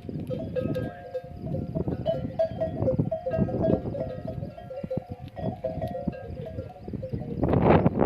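Camel bells clinking and clanking irregularly as the flock moves, many overlapping short metallic tones over a rough low noise. About seven and a half seconds in, a louder rough burst of sound rises above the bells.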